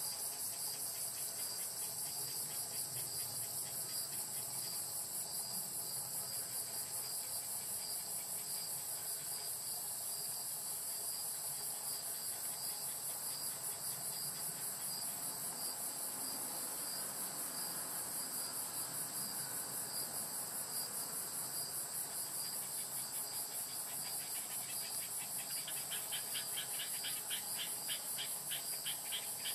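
Chorus of singing insects: a steady, fast-pulsed high trill, with a second, lower rapid trill joining at the start and again in the last few seconds.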